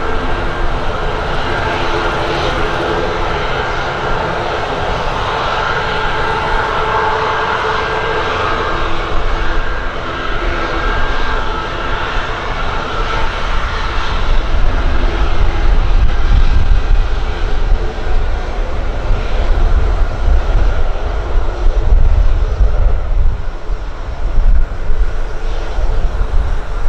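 Boeing 737 MAX 8's CFM LEAP-1B jet engines running at taxi power as the airliner taxis past, a steady whine over a rushing noise. About halfway through, a deeper, uneven rumble grows louder.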